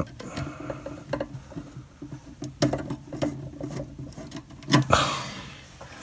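Hands working wires and a metal electrical junction box overhead while a light fixture is screwed back on: scattered small clicks, taps and rustles, with a louder brief scrape about five seconds in.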